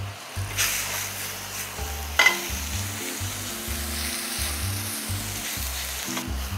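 Shiitake mushrooms and shredded pork sizzling in hot oil in a non-stick frying pan as they are stir-fried with a silicone spatula. The sizzle starts about half a second in, with a sharp scrape of the spatula about two seconds in. Background music with a bass line plays underneath.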